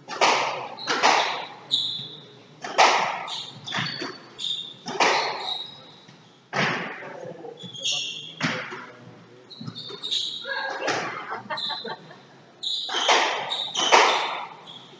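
Squash rally: the ball cracking off the rackets and the walls every second or so, each strike ringing in the court, with short squeaks of court shoes on the wooden floor between the shots.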